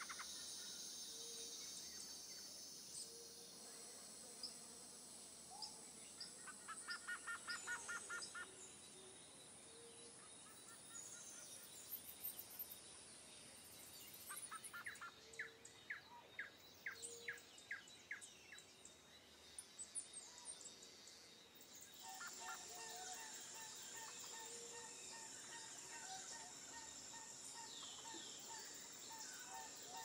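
Faint outdoor birdsong: several birds singing and calling, with bursts of rapid trills and repeated short notes, over a steady high hiss.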